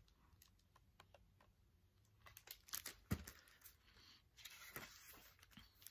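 Near silence with faint rustling and tapping as a hardcover picture book is handled and its page turned, with a soft thump about three seconds in.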